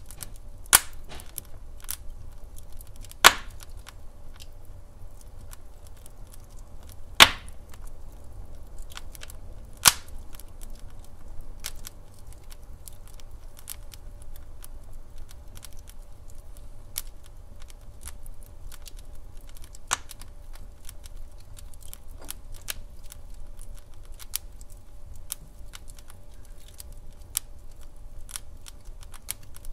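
Wood fire in a fireplace crackling: irregular sharp pops and snaps, a few much louder ones about 1, 3, 7 and 10 seconds in, over a steady low rumble of the burning logs.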